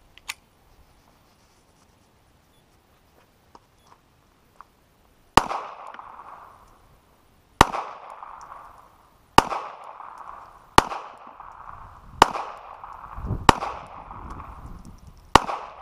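Seven gunshots fired one after another at an uneven pace, about one to two seconds apart, each sharp crack followed by a short echo. They start about five seconds in.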